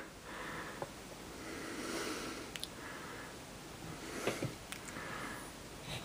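Faint handling noise: soft rustles and a few light clicks as a plastic toy figure and its base are moved about.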